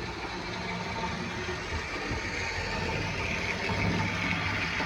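Model railway locomotive's small electric motor and gears whirring steadily as it runs along the track, a bit loud, growing slightly louder about three seconds in. The loco is a wobbly runner whose gears the owner feels are a bit dry.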